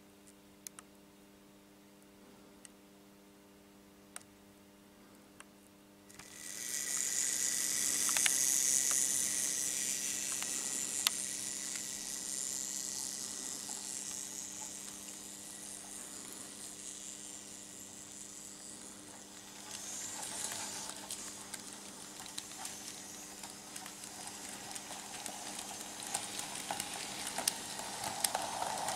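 Steady faint electrical hum, then about six seconds in a Märklin H0 model freight train running on tinplate M-track: a loud hissing rolling noise of small metal wheels that fades and then swells again with rapid clicking over the track joints.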